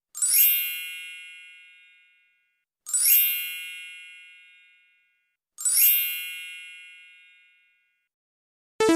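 A bright, high chime 'ding' sound effect with a sparkly, tinkling onset, played three times about 2.7 seconds apart, each ringing out and fading over about two seconds. A short, lower-pitched blip sounds just before the end.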